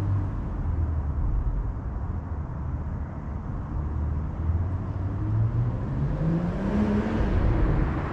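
BMW M340i's turbocharged B58 inline-six engine on its stock exhaust, running under way. Its pitch rises from about five seconds in as the car accelerates.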